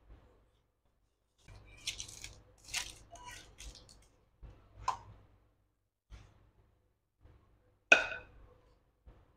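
Parchment paper rustling and crinkling in short bursts as it is pressed into a glass baking dish, then a sharp clink near the end as the glass batter bowl knocks against the dish.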